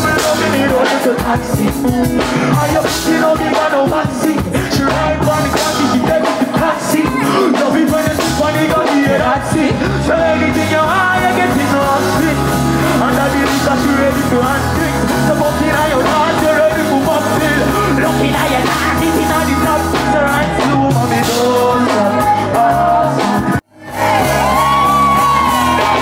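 Live performance: loud music with a vocalist singing over a backing track, and yells from the crowd. The sound cuts out for an instant near the end.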